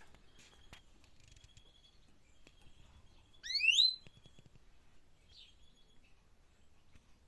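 A songbird calling: one loud, quickly rising call lasting about half a second, about halfway through, with faint short chirps before and after it.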